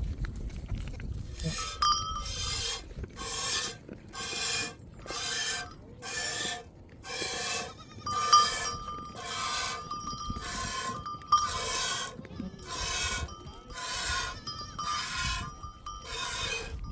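A sheep being milked by hand, milk squirting into a pail in a steady rhythm of about three squirts every two seconds, each a short hiss with a faint ring from the pail. It starts about a second and a half in.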